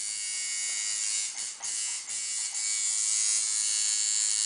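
Electric tattoo machine buzzing steadily as the needle works the skin, dipping briefly a few times between one and two and a half seconds in.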